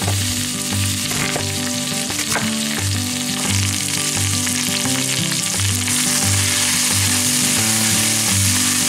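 Diced potatoes and onion sizzling loudly in hot oil in a cast-iron skillet, stirred with a wooden spoon near the end.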